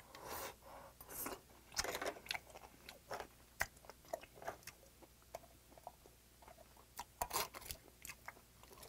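A lightly steamed oyster sucked off its half shell, then quiet wet chewing with many small mouth clicks and a few sharper clicks later on.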